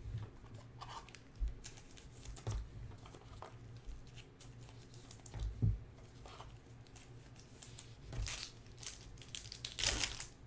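Trading cards and foil pack wrappers being handled by hand: rustling and crinkling, with scattered soft knocks as cards are set down on the stacks on the table.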